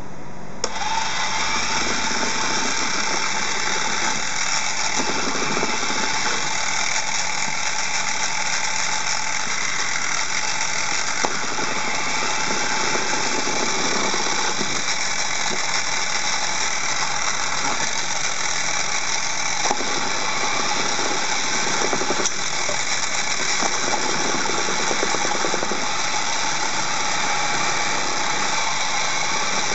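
Beyblade top spinning in a plastic stadium: a steady whirring grind with a faint steady tone, and a few light clacks against the stadium.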